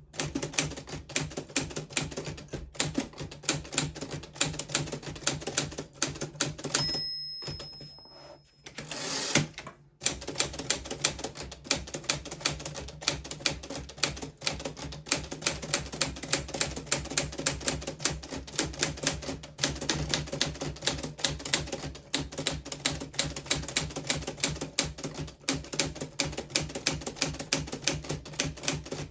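Vintage 1940s Smith Corona Silent manual typewriter being typed on steadily, with rapid key strikes. About seven seconds in, the typing stops for a bell ring and a short sliding sweep, the end-of-line bell and carriage return, and then typing resumes.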